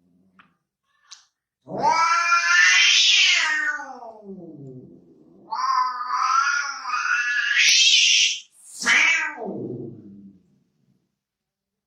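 A cat yowling in three long, drawn-out wails, the last one sliding down in pitch. It is the hostile caterwaul of a cat squaring off against an animal.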